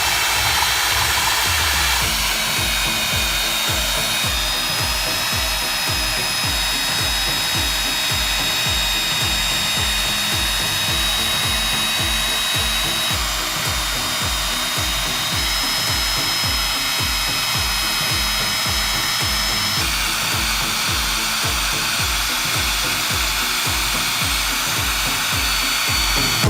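Core drill running steadily with a high motor whine while a diamond core bit cuts into concrete, over a steady music beat.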